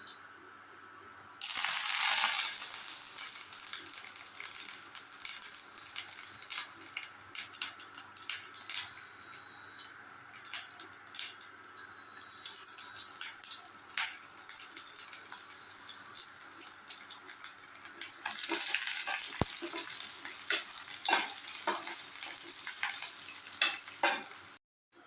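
Pointed gourd (parwal) pieces frying in oil: a loud sizzle starts suddenly about a second in, settles into a steady sizzle with scattered crackles and pops, and swells again near the end.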